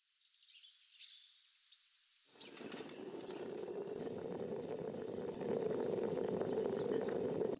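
Aluminium moka pot gurgling and sputtering as the brewed coffee is forced up into the top chamber. It starts about two seconds in as a dense crackling bubble, grows steadily louder and cuts off abruptly at the end. Faint bird chirps come before it.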